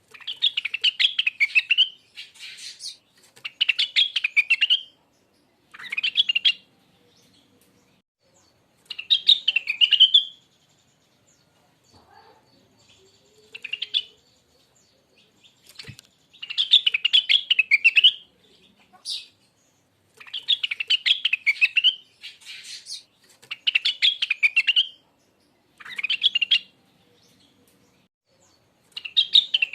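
A young Rengganis (cucak wilis) leafbird singing: repeated quick, chattering, high warbled phrases, each lasting about one to two seconds, with short pauses between them.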